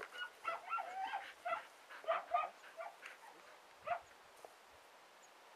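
A dog giving a quick run of short, high-pitched yips and barks, about fifteen in the first four seconds.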